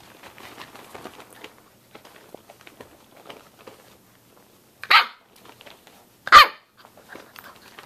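Samoyed puppy barking twice, two short sharp barks about a second and a half apart in the second half, the second one louder. Faint scuffling of puppies moving on the blankets comes before them.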